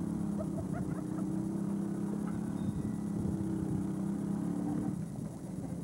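A small engine running at a steady speed, a low even hum that eases off near the end.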